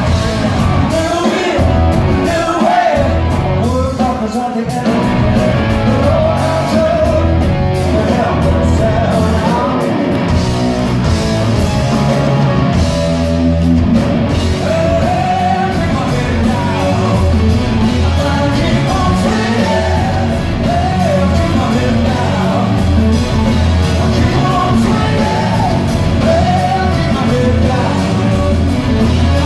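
Rock band playing live at concert volume: electric guitar, bass and drums under a male lead singer. Recorded from among the audience in a large hall.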